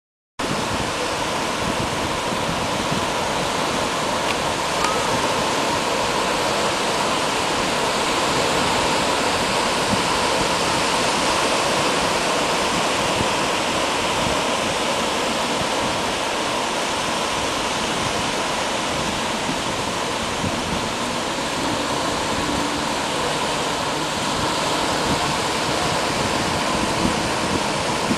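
Ocean surf on a beach: a steady rush of waves breaking and washing in, starting abruptly about half a second in.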